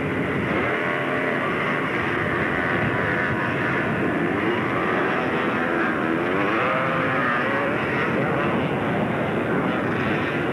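Engines of racing three-wheeled ATVs running hard and revving up and down as they pass, the pitch rising and falling several times.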